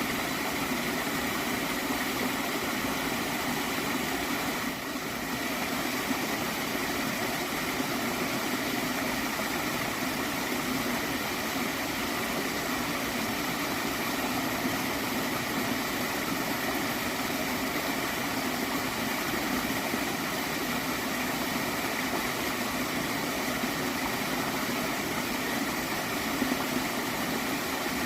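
Gently flowing stream water gurgling steadily, with a brief slight dip in level about five seconds in.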